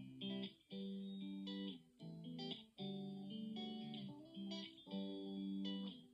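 Background music led by a plucked guitar playing a melody of sustained notes.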